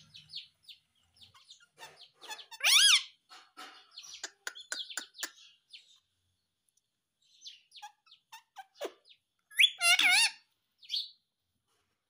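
Indian ringneck parakeet calling: a loud wavering call about three seconds in, a run of short clicks and chirps, then more loud calls around ten seconds in.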